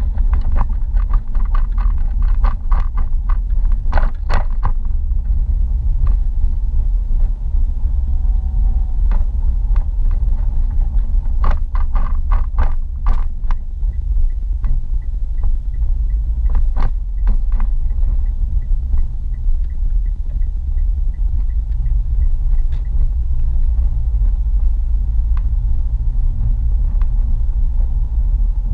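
Car driving in city traffic, heard from inside the cabin: a steady low road and engine rumble, with bursts of knocks and rattles from bumps in the first few seconds, around the middle and again a little later. A faint, even ticking runs for several seconds in the middle.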